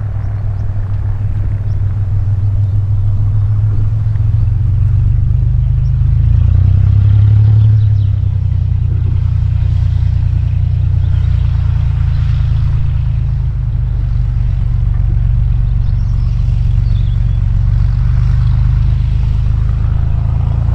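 GippsAero GA8 Airvan's turbocharged six-cylinder Lycoming piston engine and propeller running at low taxiing power: a steady low drone that swells briefly about six to eight seconds in.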